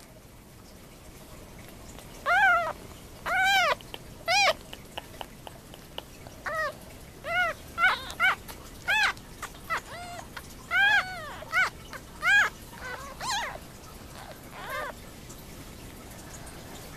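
About-week-old kittens mewing: a run of short, high-pitched cries, each rising then falling in pitch, starting about two seconds in and growing fainter and sparser near the end.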